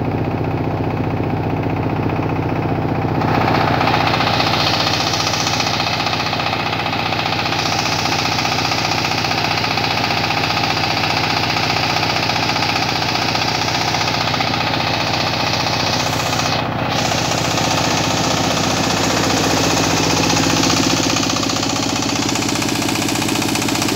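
A power tiller's single-cylinder diesel engine runs steadily, driving a portable rice huller that is milling paddy, with the grain hissing and rattling through the huller. The hiss grows harsher and louder about three seconds in and stays that way.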